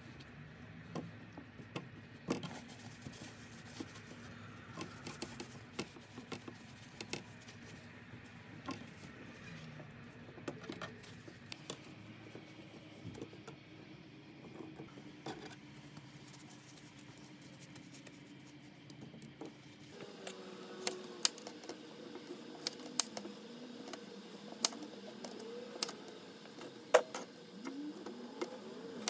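Okra pods and a paper towel being handled on a plastic cutting board, with soft scattered taps. About two-thirds of the way through, a small kitchen knife starts trimming the okra ends: sharp clicks of the blade on the board, about once a second.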